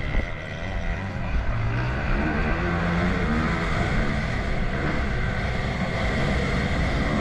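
Motocross bike engine running hard, accelerating out of a turn down a straight, heard from an onboard camera.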